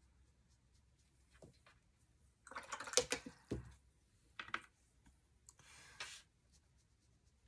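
Faint clicks and taps of a watercolour brush against a metal paint palette, loudest about three seconds in, then a short scrubbing as the brush mixes paint in the palette.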